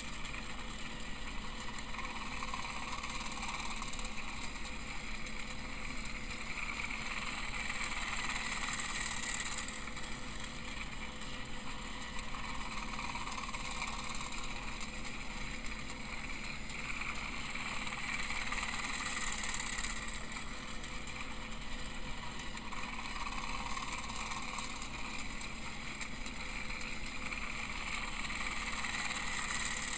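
Battery-powered Tomy Plarail Emily toy train running on plastic track: the steady whir of its small electric motor and gears, growing louder and softer about every ten seconds as it laps the oval.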